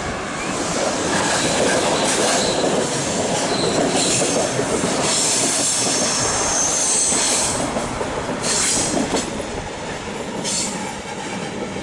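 Double-deck regional passenger train running past on curved track, its wheels squealing high in the middle and clicking over rail joints and points near the end.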